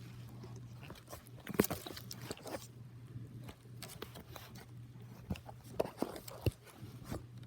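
Scattered short taps, clicks and crinkles of things being handled, over a low steady hum.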